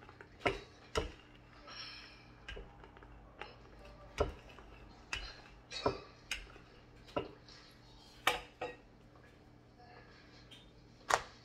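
Wooden rolling pin rolling out dough on a wooden butcher block, with irregular sharp knocks and clicks about once a second and one of the loudest near the end.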